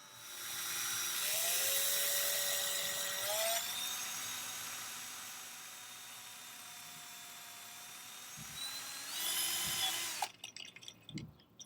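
Electric drill running, spinning a bolt-mounted line spool to wind fishing line off a reel. Its whine steps up in pitch twice in the first few seconds as it speeds up, holds steady, rises again near the end, then cuts off suddenly about ten seconds in.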